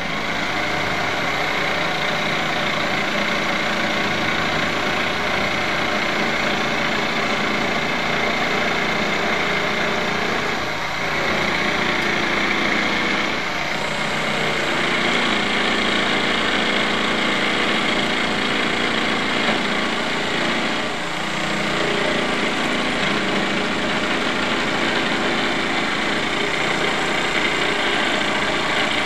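Electric jigsaw cutting a circle out of a plywood sheet, running steadily, with two brief dips about a third and two-thirds of the way through.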